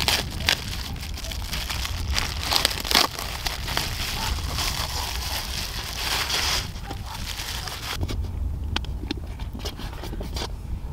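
Clear plastic wrap on a pizza crinkling and tearing as it is cut with a knife and peeled off, with many small crackles; it stops about six and a half seconds in, leaving only a few light knife clicks on the metal baking tray.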